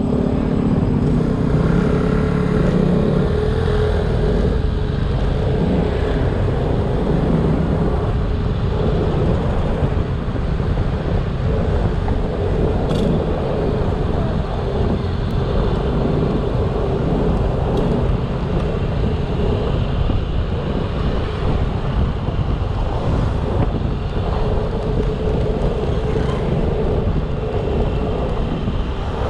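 Yamaha XMAX scooter ridden at a steady pace: its single-cylinder engine runs with a steady drone over a dense rumble of road and wind noise.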